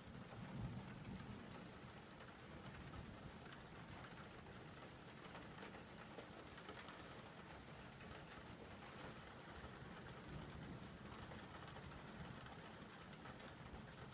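Faint, steady rain falling during a thunderstorm.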